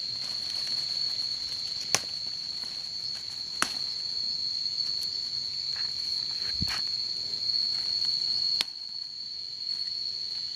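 Insects chirring steadily in a high, even tone. Four sharp clicks come through it, the loudest about two seconds in, as chillies are picked by hand.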